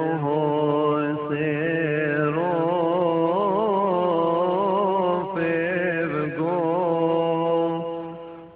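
A single voice chanting a slow, melismatic Coptic hymn, each note held long and wavering, over a steady low drone; the phrase fades away near the end.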